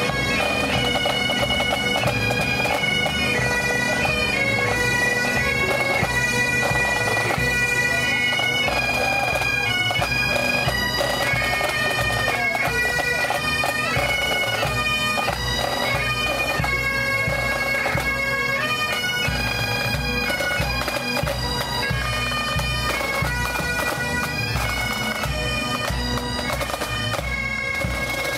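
Pipe band playing as it marches: Highland bagpipes sound a stepping melody over their steady drones, with drums beating underneath. The sound grows slightly fainter toward the end as the band moves past.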